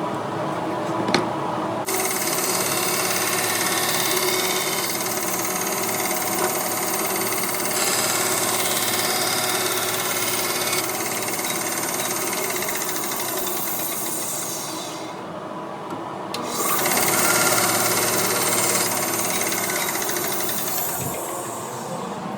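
Electric grinder running with steel held against it, a steady motor hum under a bright grinding hiss. The grinding stops for a moment past the middle while the motor keeps running, then resumes.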